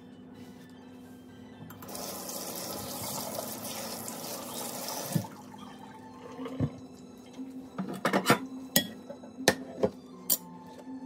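Kitchen tap running into a sink for about three seconds, then a string of sharp knocks and clatters of things set down on the counter.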